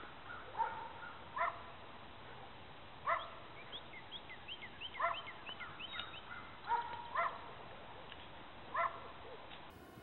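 Short animal calls repeated about six times, each brief and pitched, with a run of faint, quick high chirps in between around the middle.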